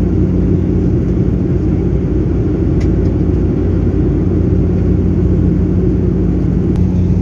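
Steady cabin drone of a passenger jet in flight: engine and airflow noise with a low, even hum underneath. Two faint ticks, about three seconds in and near the end.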